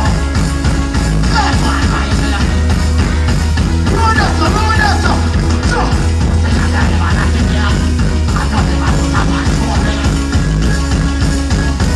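Live dancehall music played loud through a large stage sound system, with a heavy, steady bass and a male vocalist's voice on the microphone coming in and out in short phrases over the backing track.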